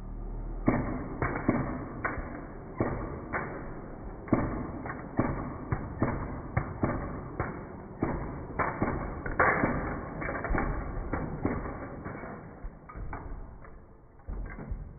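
Toy blaster firing yellow balls at LEGO ships: an irregular volley of sharp hits as balls strike the bricks and knock pieces loose. It starts about a second in and thins out near the end.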